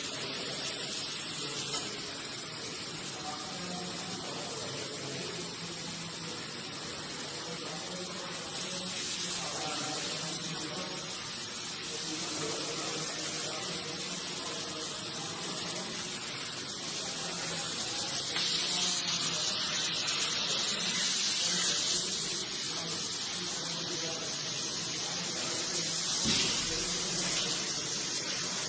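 Steady rushing hiss from the running robot and CNC mill cell, growing louder for a few seconds about two-thirds of the way through.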